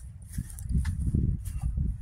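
Wind buffeting the microphone, a low uneven rumble that grows louder about halfway through, with footsteps on frosty grass.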